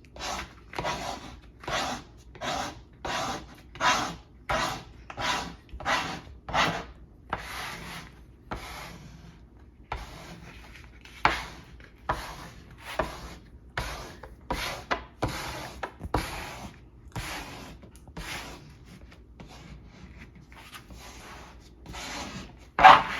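Plastic squeegee swiped across a vinyl decal on car window glass, pressing it down: a run of short rubbing strokes, about one and a half a second at first, then sparser and fainter, with one louder swipe near the end.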